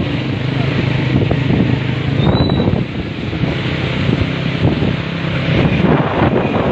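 Vehicle engine running while driving, with wind buffeting the microphone.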